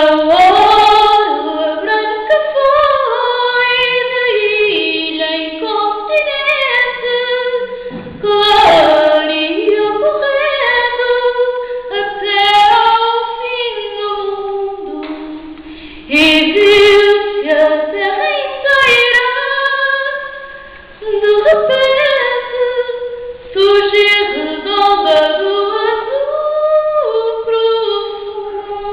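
A woman singing solo and unaccompanied, a cappella, in long melodic phrases with short breaks between them.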